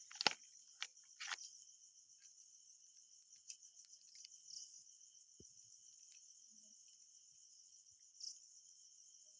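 Night insects, cricket-like, keep up a steady high-pitched trill. Two short, sharp noises near the start are the loudest sounds, and a few faint clicks follow.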